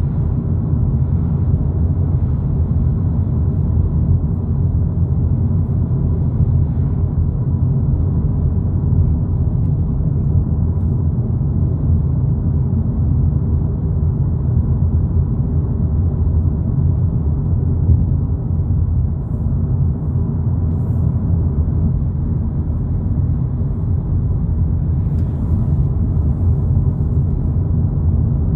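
2022 Volkswagen Polo GTI cruising on the road, heard from inside the cabin: a steady low rumble of tyres and engine that holds even throughout.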